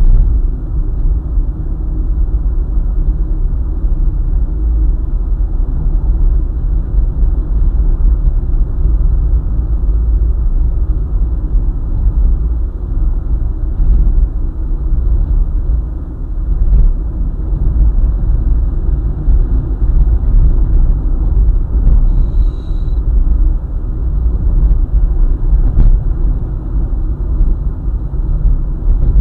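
Car driving on a highway: a steady low rumble of road and engine noise, with a brief high chirp about twenty-two seconds in.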